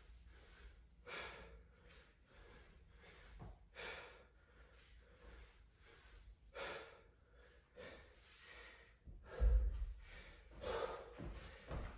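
A man breathing hard, a heavy exhale about every three seconds with each dumbbell snatch. About nine and a half seconds in, a dumbbell thuds down onto rubber gym flooring, followed by quicker panting.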